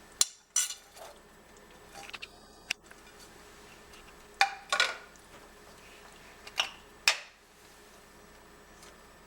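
Metal utensils clinking against a cooking pot as chopped beans and onion are added and stirred in: a handful of short, sharp clinks spaced irregularly over several seconds.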